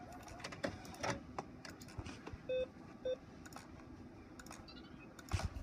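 Control panel of an HP Officejet 4500 all-in-one printer giving two short beeps about half a second apart, amid soft clicks of its buttons being pressed. A couple of louder knocks come near the end.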